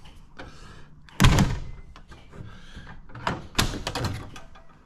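A vehicle door being pushed shut: a heavy thud about a second in, then several more knocks a couple of seconds later as it latches.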